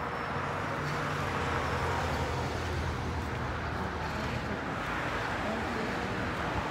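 Road traffic going by: steady noise of passing cars, with a vehicle's low engine hum that comes up about half a second in and fades after a few seconds.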